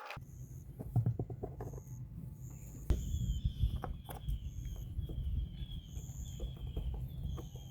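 Birds chirping outdoors: short high notes repeat every second or so, and falling calls come in about three and a half seconds in. Under them run a steady low rumble and a few scattered knocks and clicks.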